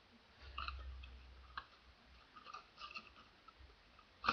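Small cardboard toy box being handled and opened by hand: faint scattered clicks and rustles, with one sharp knock at the very end.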